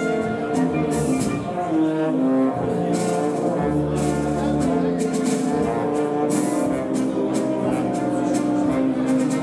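Instrumental music: a waltz with brass instruments prominent, holding sustained chords.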